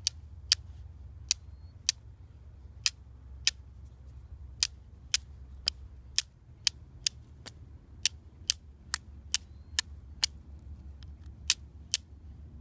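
A flint rock struck again and again against the spine of a high-carbon steel Mora bushcraft knife to throw sparks onto char cloth: about twenty sharp clicks, irregularly spaced at one to two a second.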